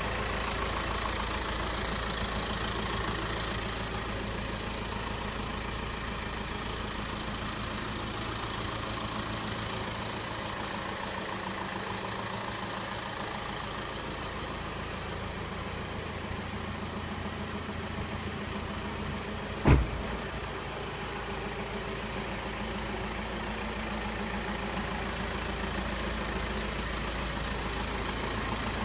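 2005 Volkswagen Caddy van's engine idling steadily, with a single thump about twenty seconds in.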